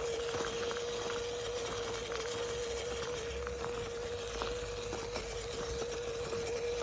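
Small electric motor of an LC90 RC crawler truck whining at a steady pitch as it drives, with scattered light clicks and crackles from the tyres over twigs and leaf litter.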